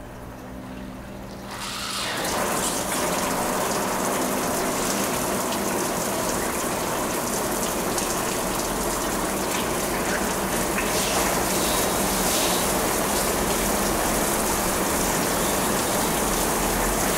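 Water spraying down from a rain-room enclosure's overhead nozzles, switched on by remote: it comes on about two seconds in and builds to a steady rush of falling rain-like water.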